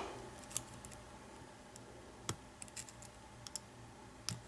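Faint, irregular metallic clicks of a hook pick and tension bar working the pin stack of an American 700 series padlock, a few scattered ticks with quiet between them. The picker suspects the lock has very weak pin springs, giving little feedback.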